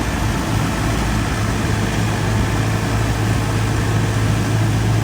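Tractor engine running steadily with a low, even hum and a noisy mechanical clatter.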